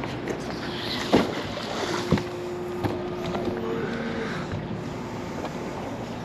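Steady wind and water noise on a small boat, with a few sharp knocks of gear being handled. A faint steady drone runs through the middle and steps up in pitch once.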